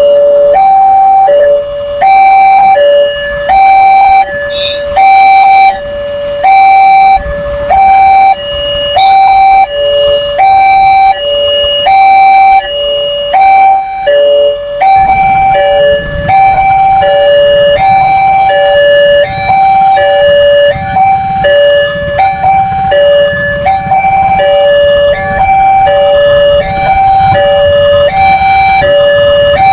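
Railroad level-crossing warning alarm sounding a loud two-tone electronic signal, alternating high and low about once a second, the signal that a train is coming and the barriers are down. A low rumble joins about halfway through.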